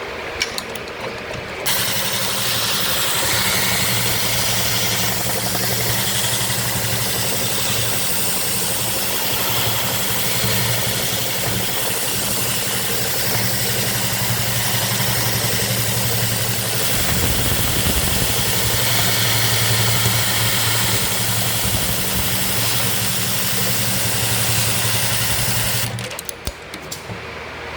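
Juki AMS-210EN computer-controlled pattern sewing machine with a heavy-duty rotary hook sewing a programmed stitch pattern: a few clicks, then the machine runs at a steady speed with a constant hum for about 24 seconds and stops suddenly, followed by a few more clicks.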